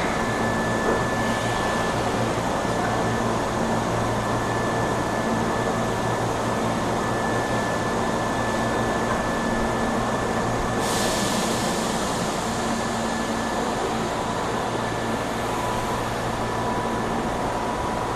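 Inside a Hankyu 8300 series electric train car standing at the platform: a steady hum of air conditioning and onboard electrical equipment with a thin high whine over it. A rush of hiss starts about eleven seconds in and fades.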